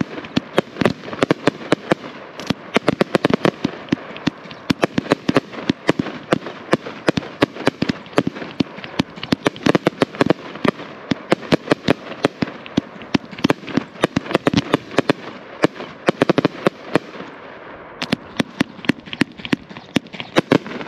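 Consumer 1.4G firework cake firing a rapid volley of aerial shells, the bursts cracking in quick succession, several a second. The reports thin out briefly a little before the end, then come thick again.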